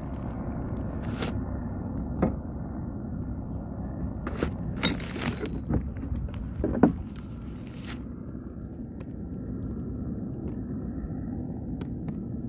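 Handling noise from a phone: it rubs and knocks against clothing, giving a handful of short scrapes and thumps in the first seven seconds, the sharpest about seven seconds in, over a steady low rumble.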